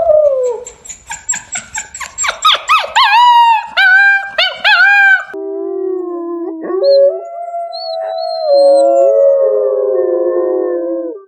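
A canine pup gives a rapid run of short, high yips that stretch into longer, wavering attempts at a howl. About five seconds in, adult canines take over, howling together in long, overlapping, held tones.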